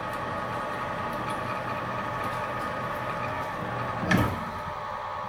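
Mini mill spindle, driven by a 900 W brushless servo motor, running an 11/32 drill bit through 6061 aluminum at about 500 RPM: a steady whine of several tones over a low hum. A single sharp knock about four seconds in.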